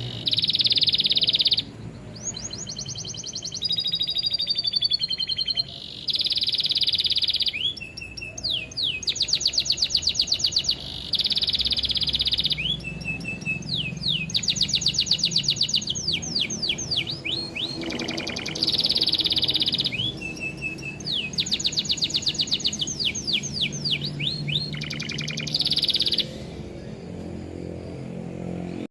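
Recorded song of a canary mixed with lovebird calls, used as training song for cage birds: fast high trills and buzzy rolls coming in bursts of one to two seconds, one after another, over a faint low drone.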